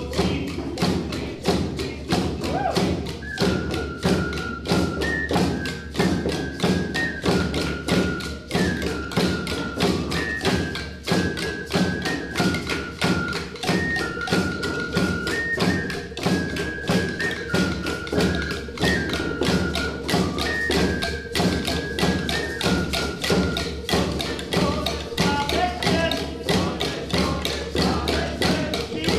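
Native-style music: a fast, steady drumbeat with a high flute-like melody stepping back and forth between a few held notes.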